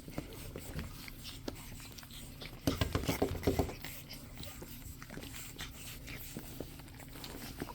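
Pug puppies moving about and making small sounds close by, with a cluster of short, louder noises about three seconds in.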